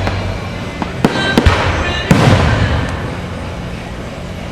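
Fireworks bursting: a few sharp bangs about a second in, then a louder burst about two seconds in, each fading away into a rumbling tail.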